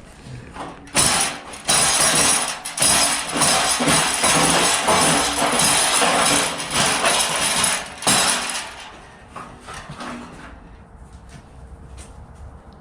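A crash-damaged car's body rattling and jingling as it is shaken hard. The rattle starts about a second in and stops about seven seconds later.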